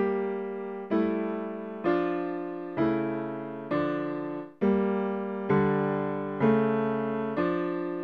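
Background music: keyboard chords struck about once a second at an even pace, each fading away before the next.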